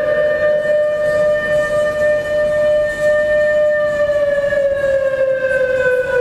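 Civil defense siren wailing on one long, steady tone that sinks slowly in pitch in the second half, sounded for a civil defense drill.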